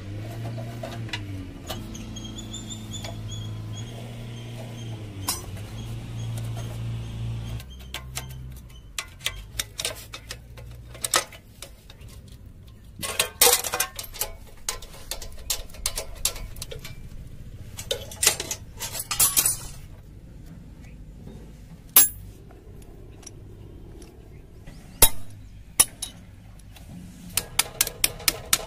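Metal parts and hand tools clinking and knocking against each other during hands-on workshop work, as scattered sharp clicks. A low hum runs for the first several seconds and then stops. Near the end comes a fast, even run of clicks, about four or five a second.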